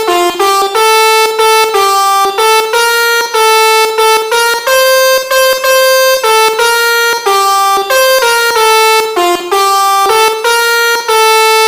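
Telolet bus horn, a multi-trumpet musical air horn, playing a tune: a loud string of single notes changing pitch every half second or so, with short breaks between phrases.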